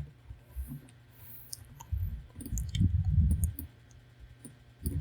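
A few scattered computer mouse clicks, with soft low thuds in the middle.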